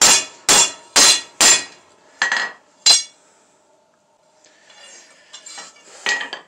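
Hand hammer striking a metal bar on an anvil, texturing a wood-grain pattern into it. Four ringing blows come about half a second apart, then two more by about three seconds in. After a pause come lighter, scattered taps, with one sharper blow near the end.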